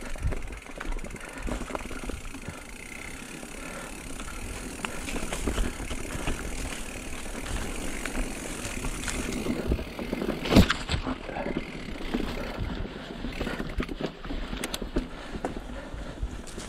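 Mountain bike riding down a dirt trail: steady tyre noise and rattling of the bike over the ground, with a sharp knock about ten and a half seconds in.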